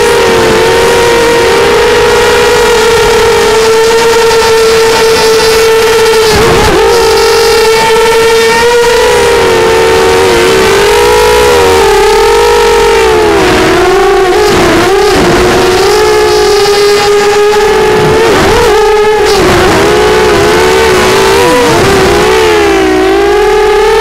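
Quadcopter's Sunnysky 2204 2300KV brushless motors spinning Gemfan 6045 props, heard through the onboard camera: a loud, steady buzzing whine whose pitch rises and falls with throttle. It briefly drops in pitch about six seconds in and several times in the second half as the throttle is chopped during acro moves.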